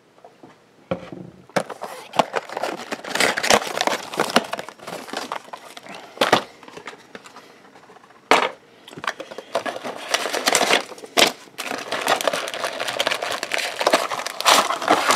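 Plastic and foil wrapping crinkling and tearing as a trading-card booster box and its packs are opened, with a few sharp knocks in between.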